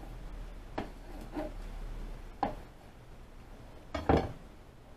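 Chef's knife cutting through pizza dough and knocking on a plastic cutting board: a few separate sharp taps. The loudest, a double knock near the end, comes as the knife is laid down on the board.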